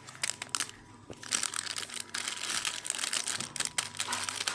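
Soap being broken up by hand or tool: a dense, crisp crackling and crunching made of many small quick clicks, sparse at first and thicker and louder from about a second in.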